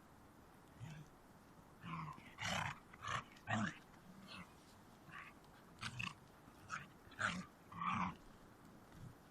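A dog's short, irregular play growls and yelps, about a dozen brief sounds with quiet gaps between them.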